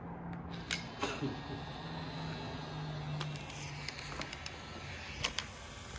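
Instant camera taking a picture: a low, steady motor whir for about four seconds as the film print is pushed out, with a few sharp clicks from the shutter and handling.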